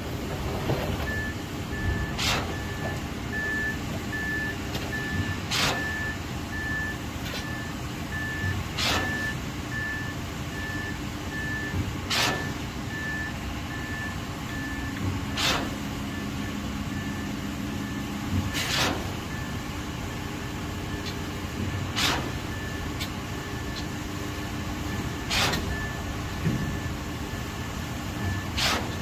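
Heavy truck engine running at a concrete pour with its backup alarm beeping steadily, about two beeps a second, starting about a second in. A sharp clank sounds about every three seconds.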